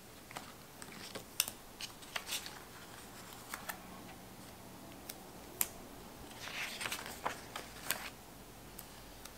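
Sticker sheets and paper being handled on a desk: scattered light clicks and rustles, with a denser patch of crinkling about two-thirds of the way through.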